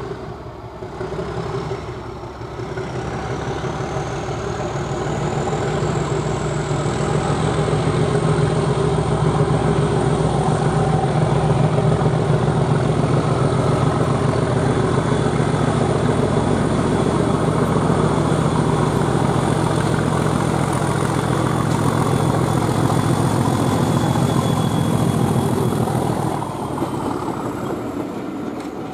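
Diesel locomotive engine working hard under heavy throttle while hauling a passenger train, the engine note building to a loud, steady level with a high whine that rises over the first several seconds and then holds. The sound eases off about 26 seconds in.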